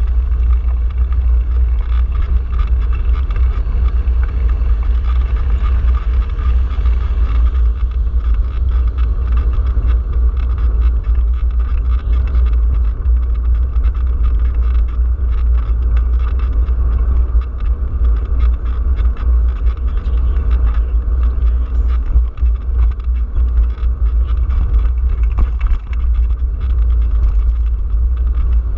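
Steady low rumble of wind buffeting and road vibration on the microphone of a handlebar-mounted camera, as a bicycle rides along a paved street.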